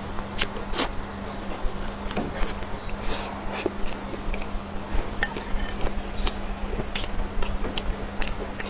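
Close-miked eating: chewing with scattered clicks of utensils against a dish, over a steady low hum.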